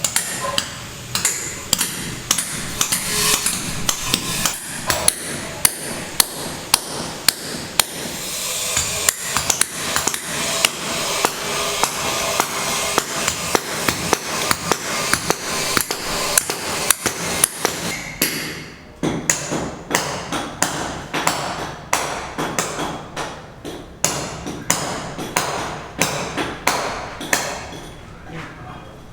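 Repeated sharp knocks, about two a second, as of something being struck over and over, over a steady noisy background.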